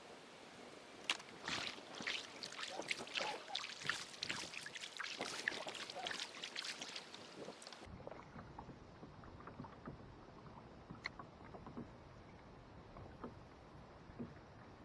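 Water splashing and knocking irregularly around a kayak for several seconds. About eight seconds in, the sound cuts off abruptly to a quieter, duller background with a few faint clicks.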